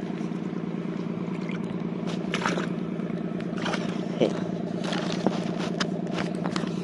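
A steady low motor drone, with scrapes and knocks of the phone rubbing against clothing from about two seconds in, the sharpest knocks a little past four and five seconds.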